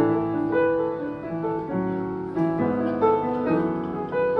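Upright piano played live: held chords and melody notes changing every half second or so, the opening of a song.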